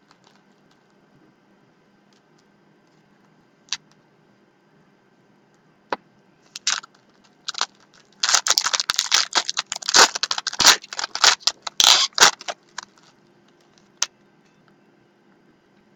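Trading cards and their packaging being handled: a few scattered light clicks, then about four seconds of dense crinkling and scraping in the middle.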